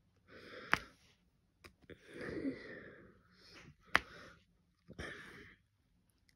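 Wheezy breathing and sniffing from someone with a cold, in several short breaths. Two sharp taps, about three seconds apart and the loudest sounds, as a diamond-painting drill pen presses resin drills onto the canvas.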